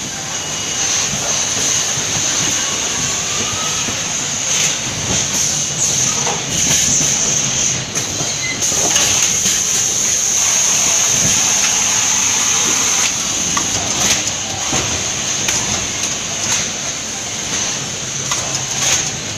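Factory roller conveyor running with cartons, rattling and clacking with scattered knocks over a low hum and a steady high-pitched hiss.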